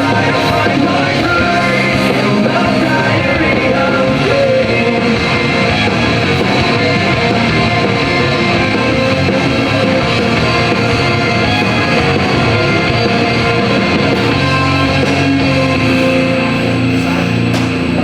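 Loud rock-style background music with singing, easing down a little near the end.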